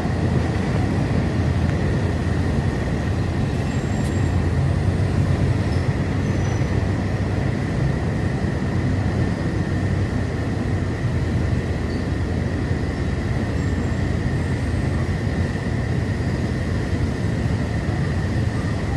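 Passenger train running along the track, heard from an open carriage window: a steady rumble of wheels and carriage with a thin, steady high whine over it.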